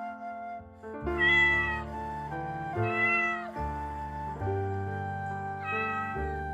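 A cat meowing three times, each meow under a second long and evenly spaced, over steady background music.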